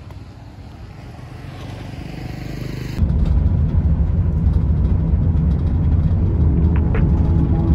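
Road and engine noise of a moving car: a quieter rumble builds over the first three seconds, then cuts suddenly to a loud, steady low rumble of the vehicle driving along.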